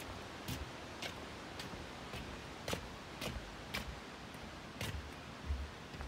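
Footsteps on the wooden plank deck of a footbridge at a steady walking pace, about two sharp clicking steps a second, with a dull low thump near the end.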